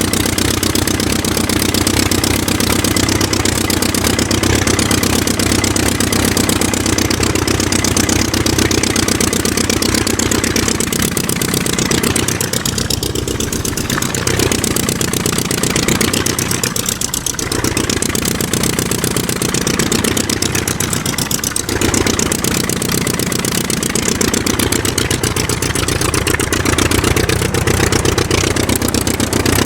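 Aircraft engine running steadily at a constant speed, a dense rapid pulsing drone whose tone slowly sweeps and wavers as if phasing.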